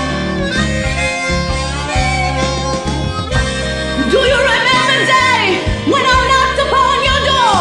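Blues harmonica playing a solo over a slow blues band backing track, with bent, wailing notes that slide up and down from about four seconds in.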